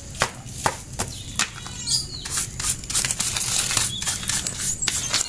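Stiff hand brush scrubbing and sweeping dirt out of a wire bird cage onto a board, in quick repeated strokes, about two to three a second, with a brief squeak about two seconds in.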